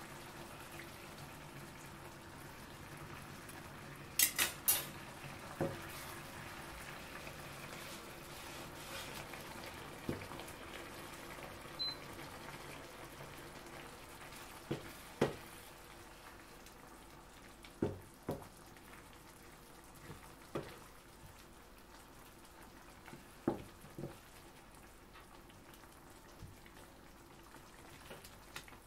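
Creamy tortellini and gorgonzola sauce simmering in a frying pan with a steady soft bubbling. A wooden spatula stirs it and knocks against the pan about a dozen times, loudest in a quick run of three about four seconds in.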